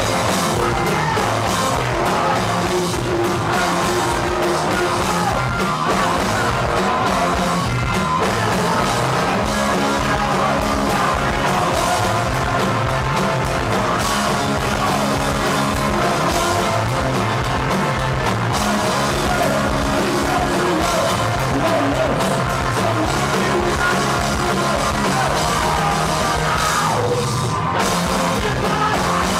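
Punk rock band playing live, with electric guitar, bass guitar and a drum kit, and shouted vocals into the microphone.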